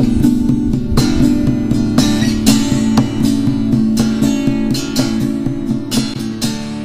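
Background music led by an acoustic guitar, plucked and strummed notes in a steady rhythm, growing quieter toward the end.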